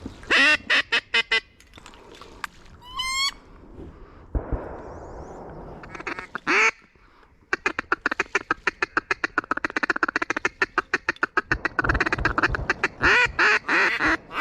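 Duck quacking: a quick run of quacks at the start, then a long fast chatter of calls from about halfway through to the end.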